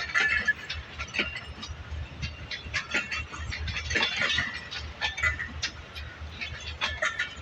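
Train at a railway station: a low rumble under many irregular short clicks and chirps.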